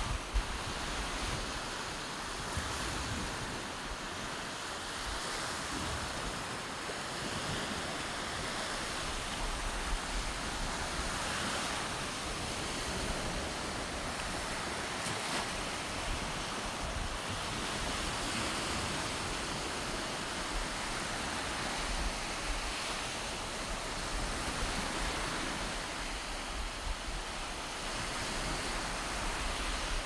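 Small surf breaking and washing up on a sand beach: a steady wash that swells and eases. Wind buffets the microphone now and then, most near the start and the end.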